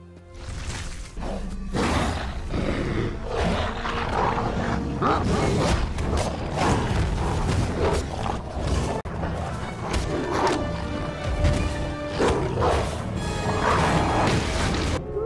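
Film soundtrack of a werewolf fight: music with snarling and many sharp heavy thuds and hits.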